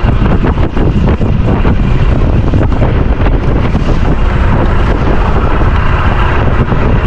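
Strong wind buffeting the microphone in a 30-knot breeze, a loud, constant rush heaviest in the low end, with gusty flutter throughout.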